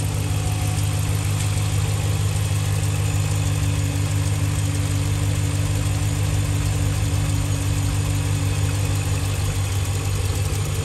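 A 2016 Ram 1500's 5.7-litre Hemi V8 idling steadily, heard close up under the open hood.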